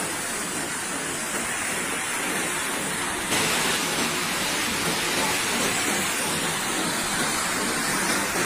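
Fast floodwater rushing and churning through a street, a steady roar of water noise. It steps slightly louder about three seconds in.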